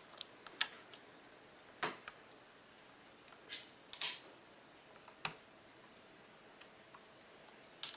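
Scattered sharp clicks and taps of a flat screwdriver tip prying at a laptop's plastic keyboard edge and its retaining clips, about eight in all and irregular, the loudest a short scraping click about four seconds in.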